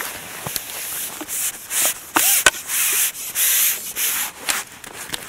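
A series of scraping, rubbing strokes as a landing net's long handle is drawn back in over the fishing platform, bringing the netted bream up onto the box.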